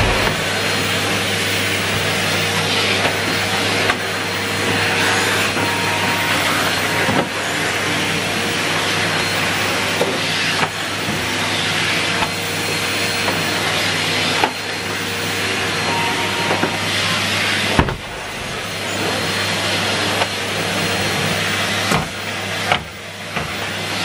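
Numatic Henry Turbo cylinder vacuum cleaner running steadily, its floor tool pushed back and forth over hallway carpet, with a few short knocks of the tool and two brief dips in the suction sound in the last third.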